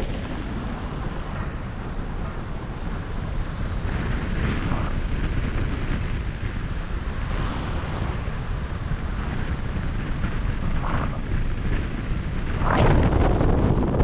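Wind buffeting the microphone during flight under a paraglider: a steady low rush with gusts, growing louder near the end.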